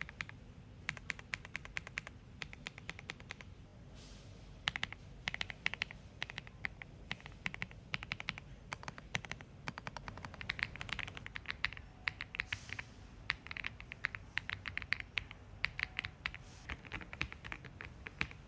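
Typing on a Voicsky mechanical keyboard: quick runs of key clicks, several a second, broken by short pauses.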